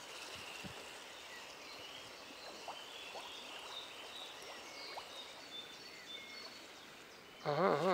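Steady rush of a small stream's running water, with faint high-pitched chirps scattered over it.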